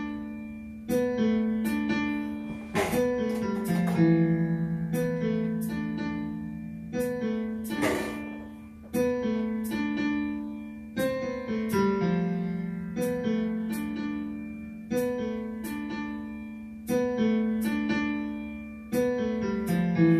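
Piano music: slow chords struck about once a second and left to ring over a low held note.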